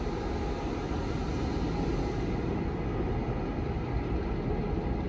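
Ex-Victorian X class diesel-electric locomotive running as it pulls away into the distance: a steady low rumble.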